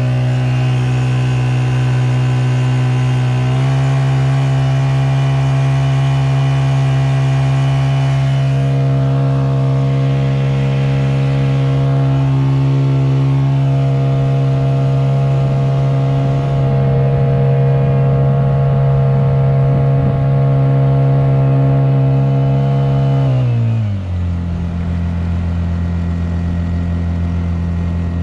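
Honda GX50 air-cooled four-stroke outboard running under way, its pitch stepping up as the throttle is opened a few seconds in and holding steady at speed. Near the end the pitch drops as the throttle is eased back.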